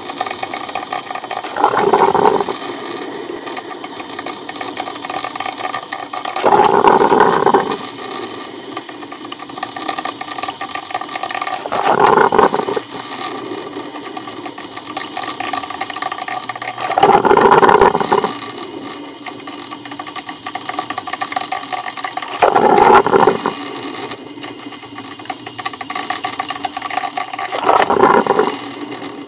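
Coffee machine running with a steady mechanical hum, rising into a louder, rougher surge about every five seconds, six times in all.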